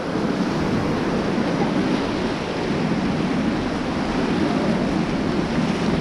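Whitewater river rapids rushing around an inflatable raft: a steady, even rush of churning water, with wind buffeting the microphone.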